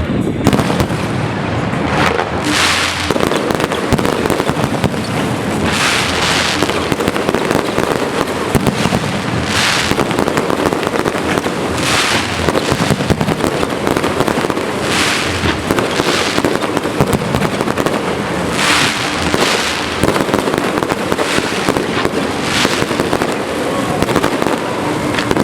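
Fireworks display: dense, continuous popping and crackling, with a louder hissing burst every two to three seconds.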